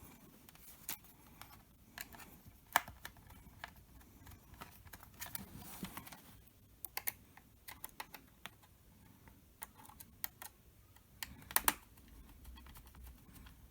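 Irregular small clicks and taps of laptop parts and tools being handled while a Dell Latitude E7470 is worked on during a battery replacement, with a louder sharp click about 3 seconds in and a pair of them about a second and a half before the end.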